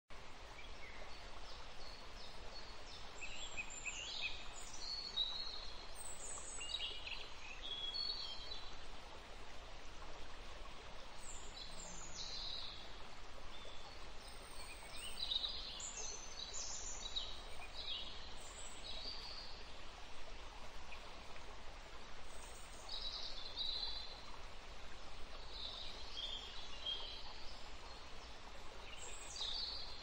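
Songbird song: short, high, twittering phrases that come and go every second or two, over a steady hiss.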